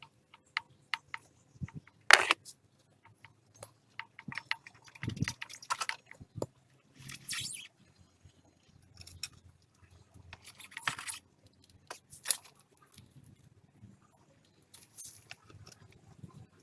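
Scattered metallic clicks and clinks, with a few short knocks and rustles, as hand tools and small metal parts are handled.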